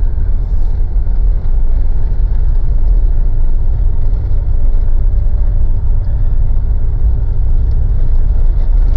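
Mitsubishi Pajero's 4M41 diesel engine and tyres heard from inside the cabin while driving along a snowy track: a steady low rumble. The engine runs evenly with no stalling.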